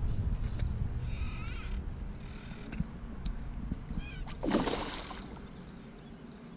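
One loud splash on the water's surface about four and a half seconds in, where carp are feeding at the surface. Warbling animal calls come before it.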